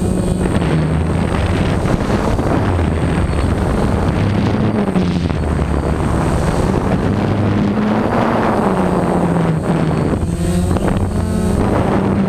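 Multirotor drone's motors and propellers whirring close to the on-board camera, the pitch wavering up and down as the throttle changes, with wind rushing over the microphone.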